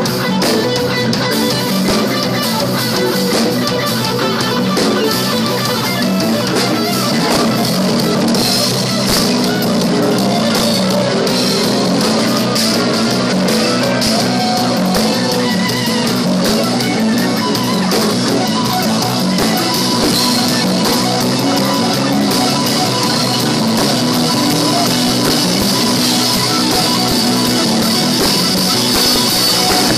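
Live band music: electric guitar playing over a drum kit in a rock-fusion groove, continuous and loud.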